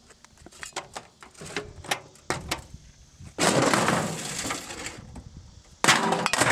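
Scattered knocks and clicks from a microwave oven being handled, then a loud hiss-like rush of noise lasting about a second and a half, and a sudden loud clatter near the end as the microwave door is pulled open.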